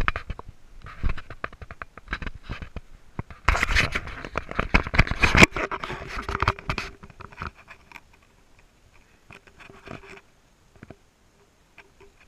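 Boots scraping and scuffing on rough rock and grit, with clothing rubbing close to the microphone. The scraping is densest and loudest for about two seconds roughly a third of the way in, then dies down to scattered small scrapes and clicks.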